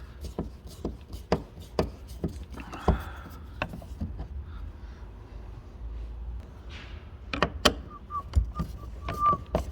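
Scattered clicks and knocks of hands working a car's rear door latch and its mounting loose, with a few louder knocks late on and a brief faint squeak near the end.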